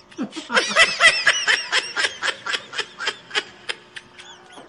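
A man laughing in a rapid run of high-pitched giggles, about four a second, trailing off near the end.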